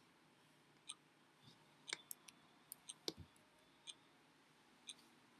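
Near silence with faint, sharp clicks: a regular tick about once a second, and a short cluster of irregular clicks between about two and three seconds in.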